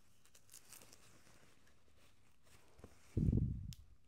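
Faint rustling and small clicks of packaging being handled, then a single dull, low thump a little over three seconds in.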